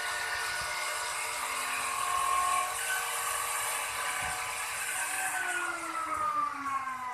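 Handheld electric plunge router running at speed while cutting a decorative groove in a wooden bed panel, a steady high whine with hiss. About five seconds in, the whine starts sliding steadily down in pitch as the motor spins down.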